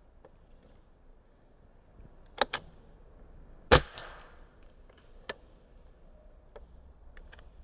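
Airsoft pistol firing BBs: a close pair of sharp snaps about two and a half seconds in, a louder snap about a second later with a short tail, another snap about five seconds in, then a few faint ticks.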